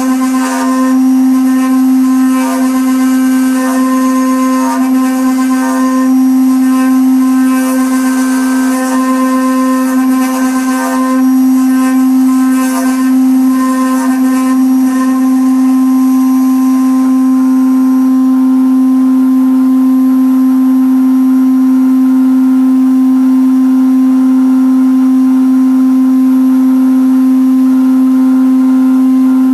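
Router spindles of a CNC wood-carving machine with a rotary divider axis running with a loud, steady hum, while the bit cuts the turning wooden workpiece. Uneven cutting noise comes and goes over the first half, then settles into a steadier sound.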